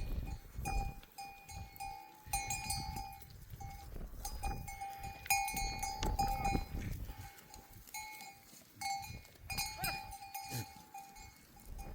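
Bells on a herd of sheep clanking and ringing irregularly as the flock moves, with a brief animal call about ten seconds in.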